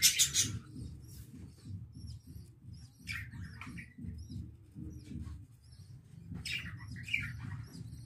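Budgerigars chirping: many short, high chirps throughout, with louder, harsher calls about three seconds in and again near the end. A brief rustle of handling comes at the start, over a low rumble.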